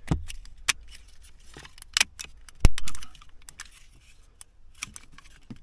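Hard plastic clicks and light rattles as the replacement electronic parking brake button assembly with autohold is handled and pressed into the centre console, its locking clips snapping in. One sharp snap about two and a half seconds in is the loudest.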